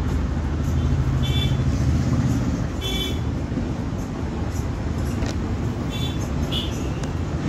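Steady low rumble of background road traffic, with a few short high-pitched chirps.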